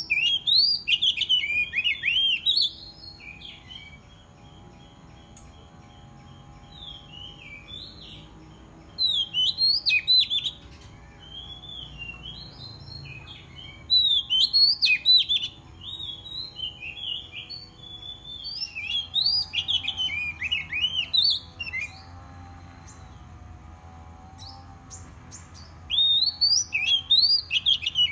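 Oriental magpie-robin singing its aggressive territorial song: loud bursts of rapid, varied whistled notes that jump up and down in pitch, each burst lasting a second or two and broken by pauses of several seconds.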